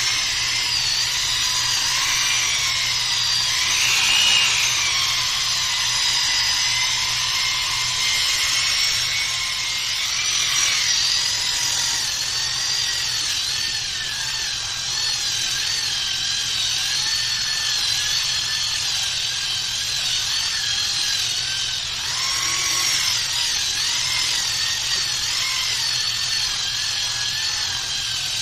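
Small electric power tool, drill-type, running continuously with a high whine whose pitch wavers up and down as the load on it changes.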